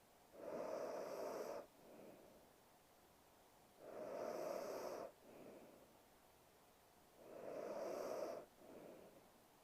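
A sleeping woman snoring: three snores about a second long, evenly spaced about three and a half seconds apart. Each is followed by a shorter, softer breath.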